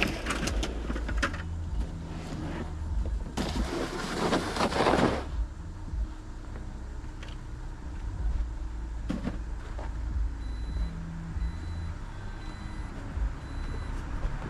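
Jeep driving, a steady low engine and road rumble, with a louder rushing noise for about two seconds around four seconds in.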